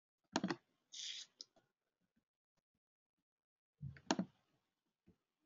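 Faint scattered clicks and small knocks from a computer mouse being worked at the desk: one cluster about a third of a second in and another about four seconds in, with a short hiss about a second in.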